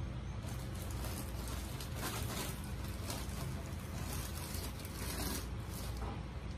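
Rustling and crinkling of a material being handled, in irregular scratchy bursts starting about half a second in and stopping shortly before the end, over a steady low rumble.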